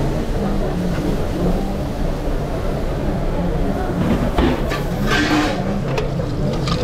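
Steady low rumble of a busy restaurant kitchen, with a couple of sharp clatters and a short hiss about five seconds in.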